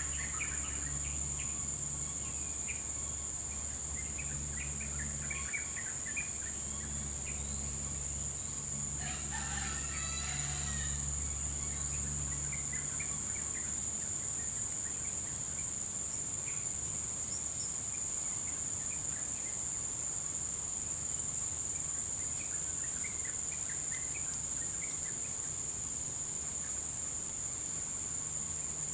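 Tropical bush ambience: a steady high-pitched insect drone with scattered short bird chirps. About ten seconds in, a feral rooster crows once, for about two seconds. A low hum of faint distant traffic runs underneath and stops about halfway through.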